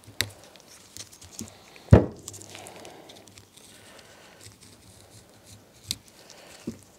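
Gloved hands working a stiff rubber seal onto a metal hydraulic-cylinder gland: light clicks and cloth rustling, with one sharper knock about two seconds in.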